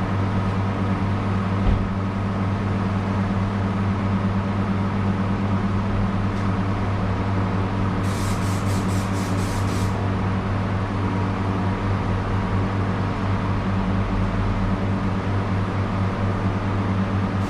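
A steady mechanical hum from a running machine. About eight seconds in comes a two-second run of short hissing pulses, about four a second.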